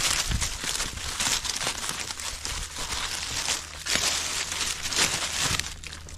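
Dry oak leaves crunching and rustling as a bundle of dead sticks and branches is gathered and dragged through the leaf litter, with many small clicks of twigs knocking together. It is loudest about a second in and again around three to four seconds in.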